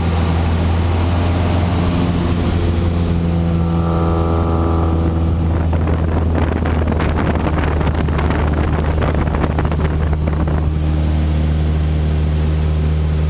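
Cessna Aerobat's piston engine and propeller droning steadily, heard from inside the cabin during aerobatic manoeuvres. A brief held tone sounds about four seconds in, and from about six to ten seconds a rough, crackling rush of noise rises over the drone.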